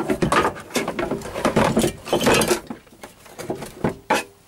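Irregular scraping and clattering at the rusted steel chassis rail of a 1973 BMW 2002, its inside packed with flaky rust, followed by a few separate knocks near the end.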